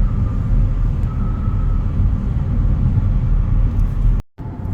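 Steady low rumble of a car on the move, road and engine noise heard from inside the cabin. It breaks off for a moment near the end.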